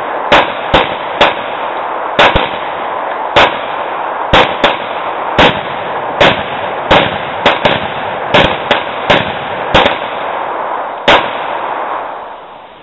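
Handgun fire from two shooters: about eighteen sharp shots at uneven intervals, some in quick pairs, the last about eleven seconds in.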